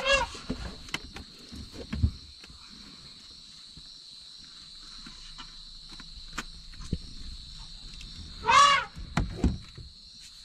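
Asian elephant trumpeting: a short call right at the start and a louder, brief one about eight and a half seconds in, over a steady high drone of insects.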